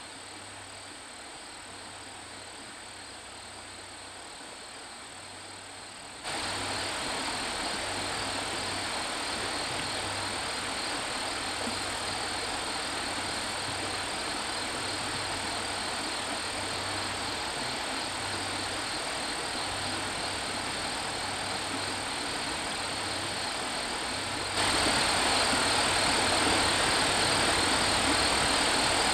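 A steady rushing noise with a thin, steady high-pitched whine on top. It jumps suddenly louder about six seconds in and again near the end.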